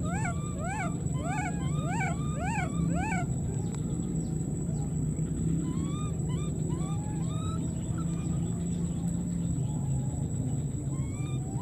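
Baby monkey crying: a fast run of high, rising-and-falling wails, about three a second, for the first three seconds or so. After that come fainter, scattered short rising calls. A steady low hum and a thin, constant high whine run underneath.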